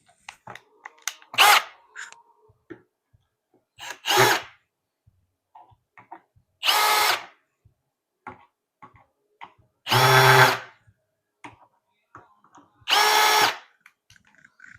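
Cordless power drill/driver running screws in five short bursts of its motor whine, each under a second and holding one pitch, with small clicks and taps of handling between bursts.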